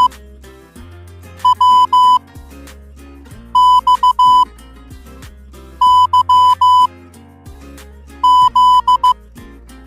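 Morse code tone: a high, steady beep keyed into short and long beeps, coming in four groups about two seconds apart over quieter background music with a bass line.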